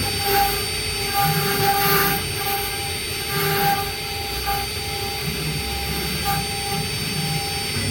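STS1318 stone CNC router running and cutting stone: a steady whine from the spindle over a gritty hiss, swelling now and then as the bit bites.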